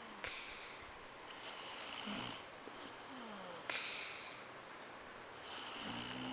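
A woman snoring in her sleep: four snores one to two seconds apart, two of them starting abruptly.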